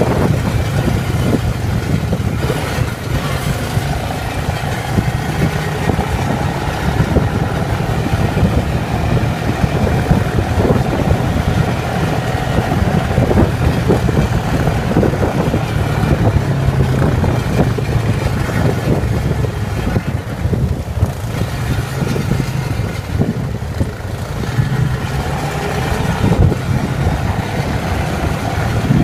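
ATV (quad bike) engine running steadily.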